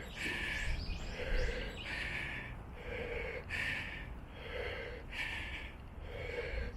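A runner's heavy, labored breathing while running up stairs: hard rhythmic breaths in and out that follow one another without a pause. The uploader puts the harshness of the breathing down to being in poor health that day.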